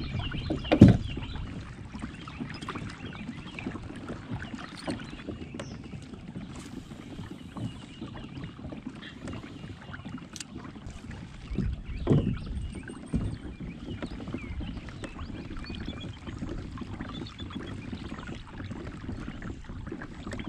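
Kayak under way on calm water: a steady low wash of water along the hull, with a sharp knock about a second in and a softer thump around twelve seconds in.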